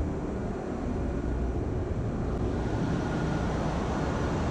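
Tanker engine-room machinery: a steady, dense low rumble with faint steady whining tones above it.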